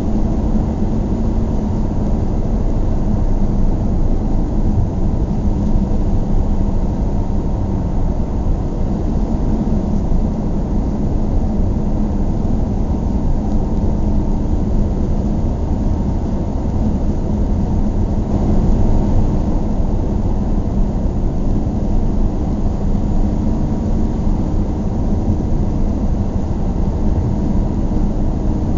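Car driving at a steady pace: a continuous low rumble of engine and tyre noise, mostly deep, with no changes.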